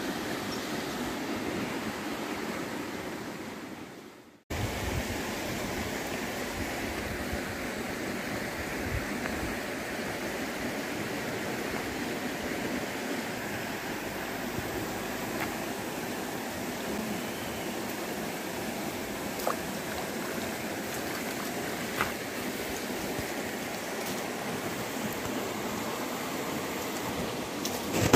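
Steady rush of a small stream's flowing water. The sound fades out about four seconds in and comes back abruptly, with a couple of faint clicks later on.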